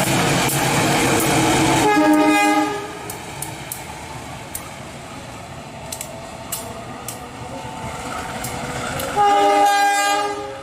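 A passing train runs loudly for the first two seconds or so, then its locomotive horn sounds a short blast as the rumble drops away. After a quieter stretch with scattered clicks, the horn sounds again for about a second near the end, a warning blast of the kind given for an unguarded level crossing.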